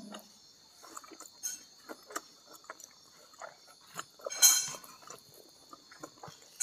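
Close-miked wet chewing and small mouth clicks of someone eating with their hands, with a louder rustling scrape of fingers gathering rice from the plate about four and a half seconds in.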